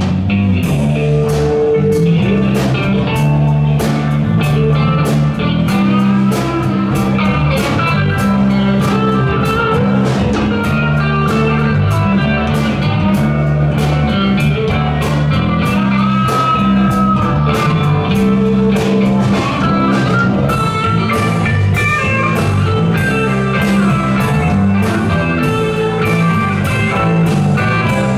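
Live band playing an instrumental passage with no vocals: guitar carries the melody over bass notes and a drum kit keeping a steady beat.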